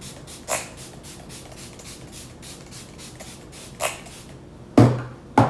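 Pump bottle of setting spray misting in two short hissing spritzes, then two louder handling bumps near the end.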